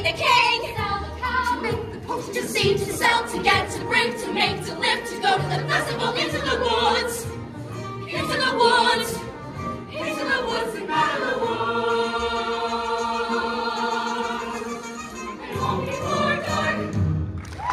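Youth ensemble singing a musical-theatre number together over a backing track with a driving beat, then holding a long sustained chord for several seconds before a short final push to the end of the number.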